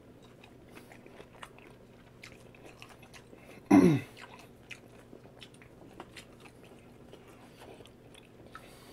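Close-miked chewing: soft wet clicks and small crunches as a man chews a mouthful of food. About four seconds in he gives one short hum that falls in pitch, the loudest sound here.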